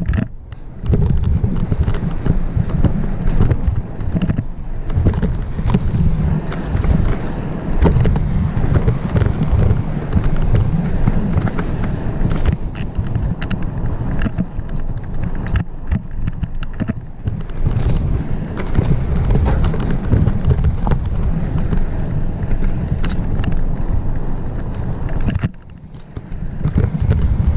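Full-suspension mountain bike descending a rough dirt trail at speed, heard from a helmet-mounted camera: wind buffeting the microphone with a constant rumble, over many small knocks and rattles from the bike on bumpy ground. The rumble eases briefly just after the start and again for about a second near the end.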